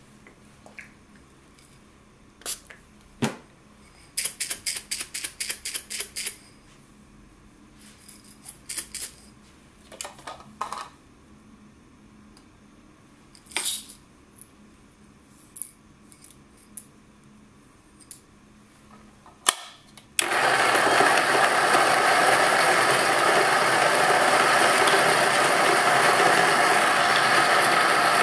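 Small clicks and taps of handling, then, about two-thirds of the way in, a Niche Zero conical burr grinder switches on and grinds coffee beans with a loud, steady whirr.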